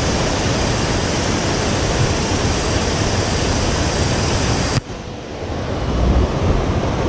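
Steady rush of water pouring over a dam into the pool below, a loud, even noise. About five seconds in it drops abruptly in level and carries on with more low rumble.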